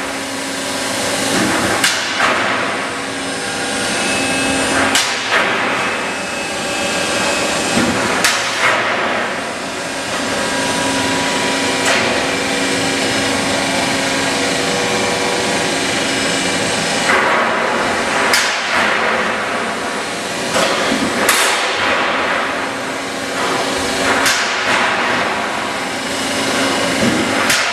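Automated corrugating press running with a steady machine hum. It gives heavy metallic strikes every few seconds as it stamps corrugations into steel plate.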